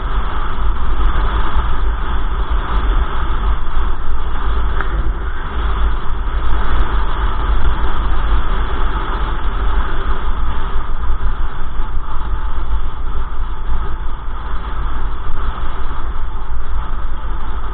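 Steady rush of wind buffeting a bicycle-mounted camera's microphone, with a heavy low rumble from riding along the road.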